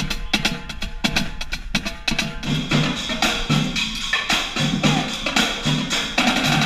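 Marching drumline playing a cadence: at first crisp stick and rim hits on ringing tuned drums, then from about two seconds in low drum hits under a wash of cymbals.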